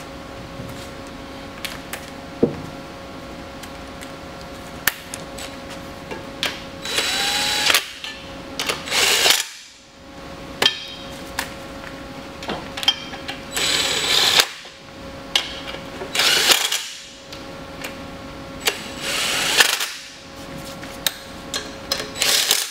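DeWalt cordless drill running in several short bursts as it drives the bell housing bolts home, each run stopping abruptly. Clicks and knocks of the bolts and tool being handled come in between.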